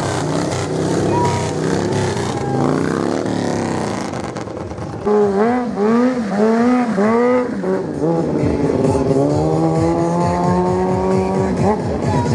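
Motorcycle engine revving: four quick throttle blips about five seconds in, each rising and falling in pitch, then the revs climb slowly and are held before cutting off shortly before the end.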